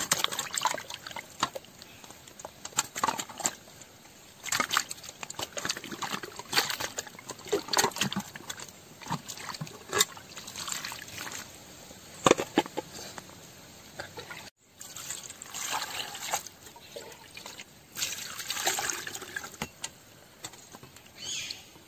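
Water splashing and sloshing as raw chicken is washed by hand, in irregular bursts with trickling and dripping between them.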